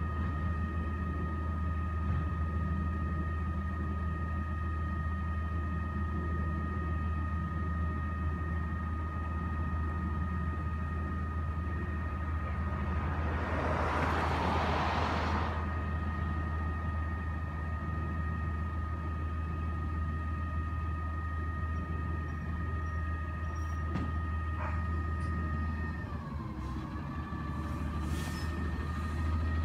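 Waste Management Labrie automated side-loader garbage truck idling, a steady low rumble with a steady high whine over it. About 14 seconds in a passing car swells up and fades. Near the end the whine dips and then climbs as the engine revs.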